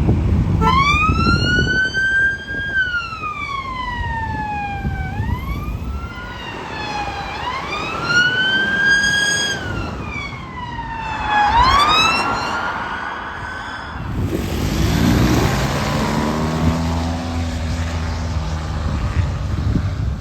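UK emergency vehicle siren sounding a wail, its pitch sliding slowly up and down several times, each sweep lasting a couple of seconds. About fourteen seconds in the siren stops and the vehicle's engine and road noise go on, with a low drone, until it cuts off.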